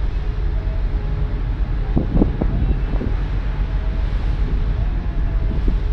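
Wind buffeting the microphone on the deck of a moving passenger ferry, over a steady low rumble from the ship under way.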